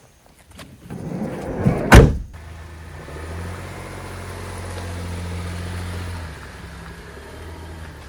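A car door is shut with one loud slam, and an engine then runs with a steady low hum that strengthens about a second later.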